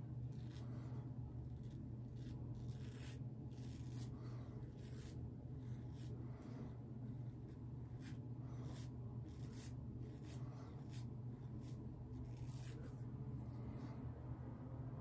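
Muhle R41 double-edge safety razor scraping through lathered stubble on the neck: a run of short rasping strokes, about one or two a second, over a steady low hum.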